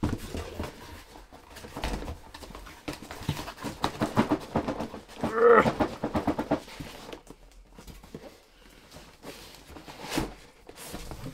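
Cardboard box and packaging being handled: a run of rustles and clicks, with a short squeaky whine about five and a half seconds in that is the loudest moment.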